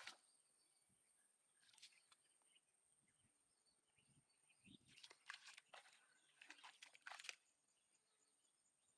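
Near silence, with faint, quick crackling clicks: a short cluster about two seconds in and a longer run from about five to seven seconds in.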